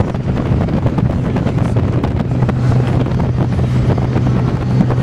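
Wind buffeting the microphone over the steady drone of a moving truck and its road noise.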